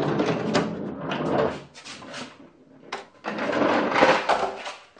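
A large wooden workbench drawer being scraped and shuffled across the floor in two rough stretches, with a sharp knock just before the three-second mark.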